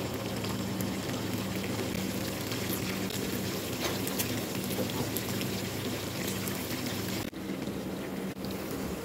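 Chicken pieces shallow-frying in hot oil in a pan: a steady sizzle with scattered small crackles, over a steady low hum.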